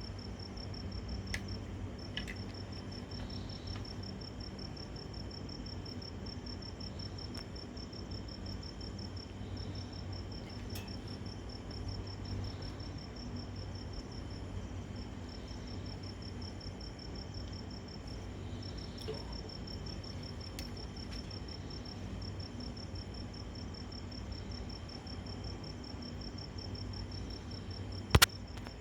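Crickets trilling steadily in a high, fast-pulsed chorus that breaks off briefly now and then, over a low steady hum. A single sharp click near the end.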